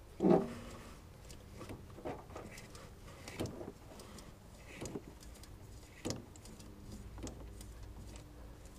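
Faint clicks and knocks of a ratchet torque wrench tightening the VAQ front differential's fill plug, scattered about once a second, with a brief louder knock just after the start.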